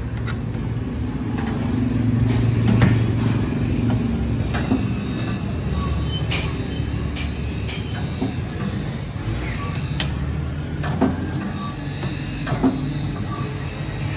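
Steady electric-motor hum from a sheet-metal rolling machine, with scattered sharp metallic clicks and taps as the rim of a stainless steel stove body is turned against its rollers.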